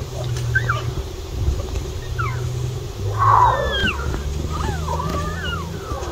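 Lion cubs mewing and chirping: several short, high calls that slide up and down in pitch, with a louder call a little past the middle, over a low steady hum.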